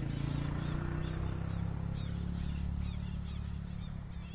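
A low, steady engine drone, loudest about half a second in and slowly fading, with small birds chirping over it.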